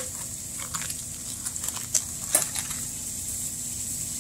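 Faint steady sizzle of food frying in a pan, with a few light clicks about two seconds in.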